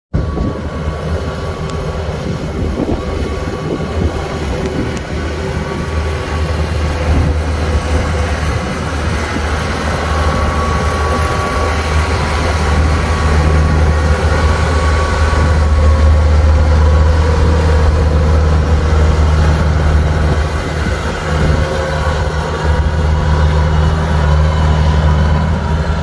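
Kubota tracked rice combine harvester running while harvesting, its diesel engine a steady low drone. It grows louder as the machine passes close around the middle, then eases off a little toward the end.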